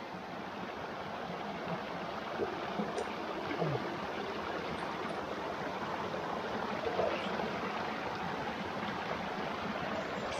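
Shallow rocky stream rushing steadily over and around stones.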